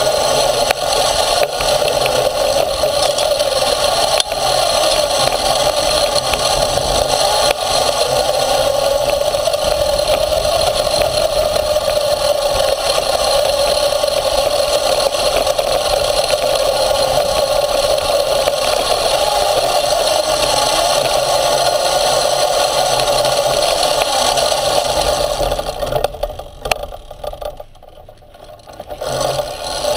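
Motorised off-road skate running over a dirt track, heard from a camera on its frame: a steady motor drone mixed with rattling and scraping from the chassis and wheels. About 26 seconds in the noise drops away sharply for roughly three seconds, then comes back at full level.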